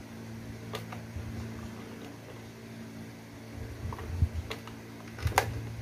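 Scattered clicks and light knocks of a hand handling the plastic control box of a solar lighting kit and its cable plugs, the loudest near the end, over a steady low hum.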